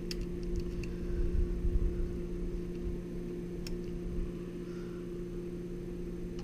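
A steady low electrical hum, with a few faint clicks and a low rumble about a second or two in as wire and a power supply are handled.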